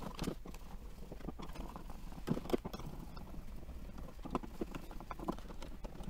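Screwdriver turning out the mounting screws of wall light switches: scattered faint clicks and small metal scrapes.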